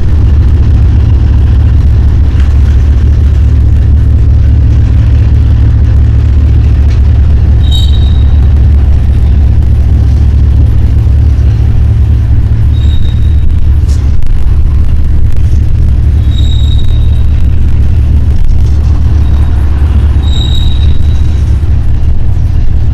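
Freight train cars rolling past with a heavy, steady low rumble. Short high-pitched wheel squeals cut through it four times.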